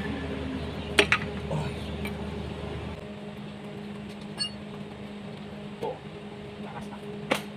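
Metal tools clinking on a bare engine block and flywheel during teardown: two sharp clinks about a second in, a lighter ringing knock in the middle and another sharp clink near the end, over a steady hum.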